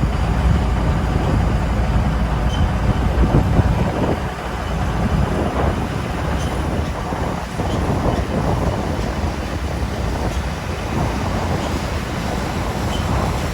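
A heavy vehicle running under way: a steady low rumble with rattling through it.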